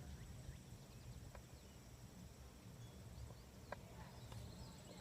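Near silence: faint outdoor ambience, a low rumble with a few faint high chirps and two soft clicks.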